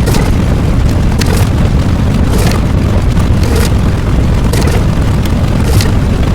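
Loud, continuous rumbling boom like an explosion or eruption sound effect, with crackles and sharp pops scattered through it.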